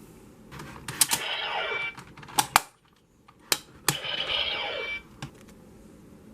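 Electronic sound effects of a K-Touch 21 transformation device: several sharp button-press clicks and two short electronic chimes, about a second in and about four seconds in.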